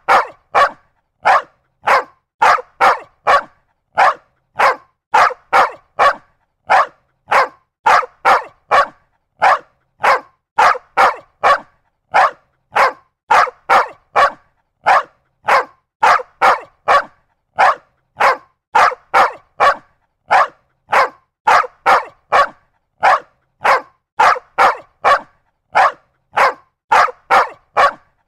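A dog barking over and over, short sharp barks coming nearly two a second with dead silence between them.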